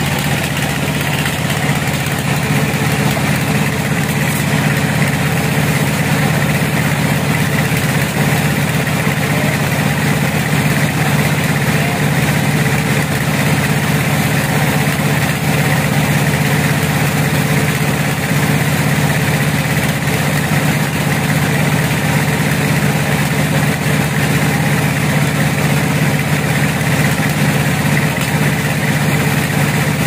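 Band sawmill running steadily with its blade cutting lengthwise through a hardwood log: a constant engine hum with the even hiss of the cut over it.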